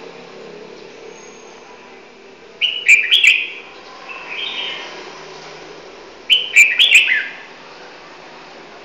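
Small songbird singing: two short loud phrases of quick, sharp whistled notes that drop in pitch, about three seconds in and again about six seconds in, with a softer phrase between them.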